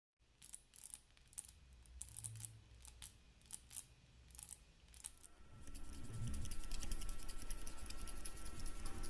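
Synthesized cricket sound effect made on a Korg Monotron analog synthesizer, with filter cutoff set high and no sustain. It starts as sparse short chirps, and about five seconds in it becomes a denser continuous trill over a steady high tone.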